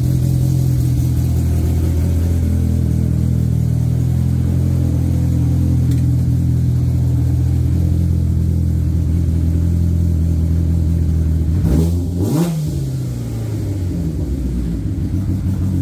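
Polaris RZR side-by-side engine idling steadily through a newly fitted Trinity Racing aftermarket exhaust. About three-quarters of the way through there is one quick throttle blip, with the pitch rising and falling straight back to idle.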